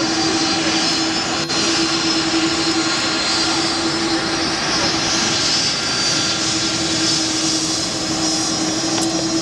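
Airbus A340-300 jet engines running in a steady rush of noise, with a constant low hum and a thin high whine over it.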